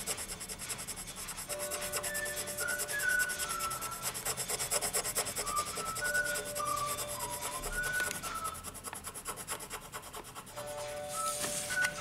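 Colored pencil scratching on paper in rapid back-and-forth shading strokes, easing off in the last few seconds.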